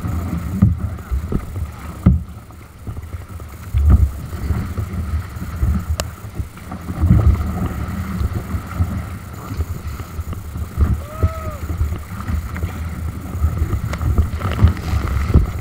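Kayak paddle strokes splashing through a rough, choppy sea, with water rushing past the hull and wind rumbling on the microphone in gusts.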